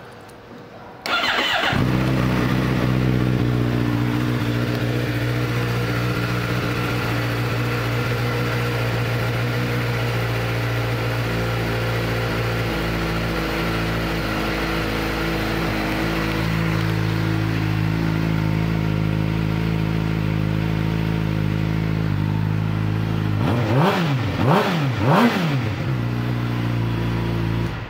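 2013 Suzuki GSX-R600 inline-four with a Yoshimura exhaust, starting about a second in and then idling steadily. Near the end it is revved three times in quick succession, each rev rising and falling, before it drops back to idle.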